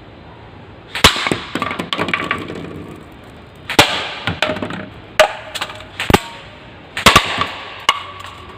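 Airsoft M4 rifle fired in single shots at uneven intervals, about six in all. Each shot is a sharp crack followed by a short rattle of clicks and a brief metallic ring.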